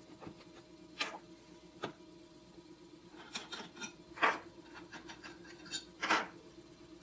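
Gloved hands handling a plastic funnel and a plastic resin bottle: scattered rubs and light clicks, with a quick run of ticks a little past three seconds in and the loudest rubs about four and six seconds in. A steady machine hum runs underneath.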